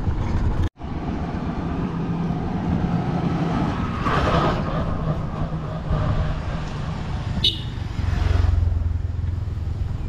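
A motorcycle's engine running as it comes along the road and goes past, its low rumble swelling to its loudest about eight seconds in. The sound drops out for a moment under a second in.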